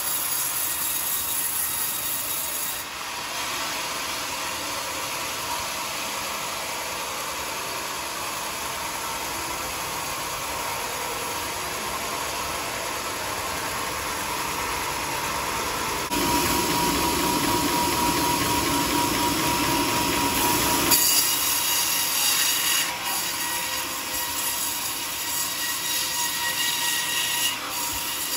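Homemade band sawmill cutting through a teak log: the blade runs with a steady hiss and squeal. Past the middle it grows louder for about five seconds with a ringing tone, then drops back suddenly.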